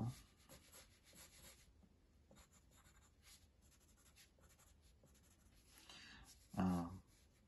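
Pencil sketching on paper: soft, quick scratching strokes of the lead across the sheet. About six and a half seconds in, a brief murmur from a voice.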